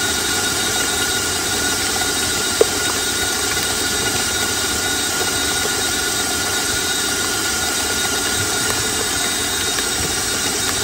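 Stand mixer motor running steadily with a thin whine as its paddle beats thick cream cheese and butter frosting in a stainless steel bowl. A single sharp click about two and a half seconds in.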